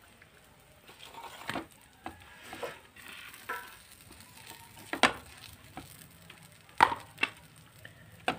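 A spoon scraping and tapping on a dosa pan while spreading potato masala over a cooking dosa, with a few sharp clinks over a faint sizzle.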